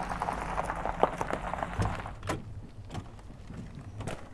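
Chevrolet van's engine running with a low hum, then sharp clicks of the driver's door latch as the door is opened, the clearest about two seconds in.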